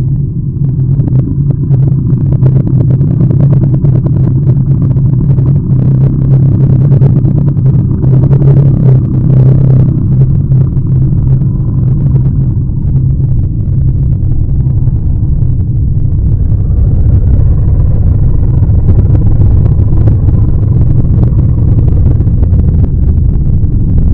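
A loud, steady low rumble that keeps going without a break, with its weight at the bass end and little treble.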